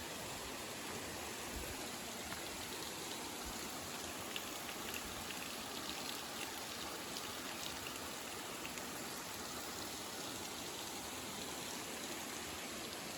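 Steady rush of water from a waterfall.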